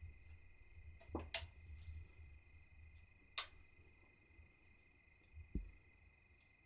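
Faint evening insect chorus of crickets: a steady high drone with short chirps repeating about twice a second. Two sharp clicks come about one and a half and three and a half seconds in, and a dull low thump near the end.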